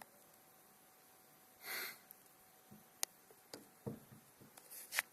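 A short breathy sniff-like noise about two seconds in, then scattered light clicks and low handling knocks that become busier near the end.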